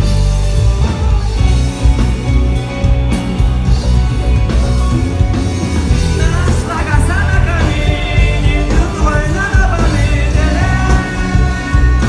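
Rock song with guitar and a heavy beat; a voice comes in singing about halfway through.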